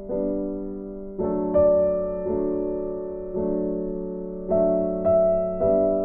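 Background music: slow, soft piano chords, each struck and left to fade before the next, about once a second.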